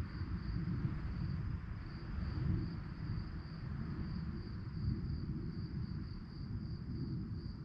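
Crickets chirping in a steady, evenly pulsing high trill, over a low, uneven rumble.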